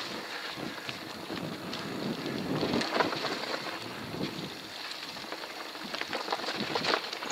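Mountain bike riding fast down a rocky dirt trail: the tyres roll over stones and roots while the bike rattles and knocks over bumps, with wind rushing over the microphone.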